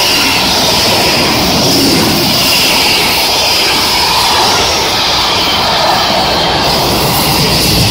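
Wagons of an El 19-hauled freight train rolling past at close range: a loud, steady rush of wheels on rail that runs on without a break.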